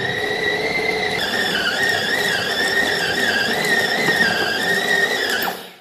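Countertop food processor motor running under load as it kneads a yeasted semolina dough: a steady whine whose pitch wavers slightly, winding down and stopping near the end.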